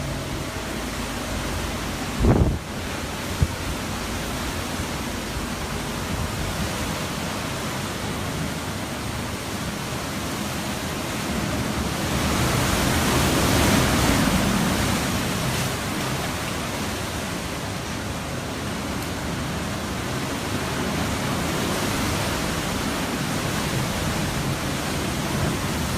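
Hurricane-force wind blowing as a steady rush, swelling into a stronger gust about halfway through. There is a brief thump about two seconds in.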